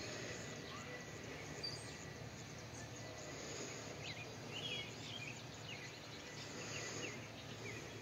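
Outdoor ambience: a steady background hiss with small birds chirping now and then, a cluster of chirps about halfway through.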